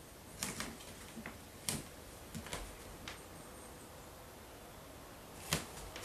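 Faint handling noise as a cat is turned over onto its back in a person's arms: a scatter of short clicks and taps, the sharpest one a little under two seconds in and another near the end.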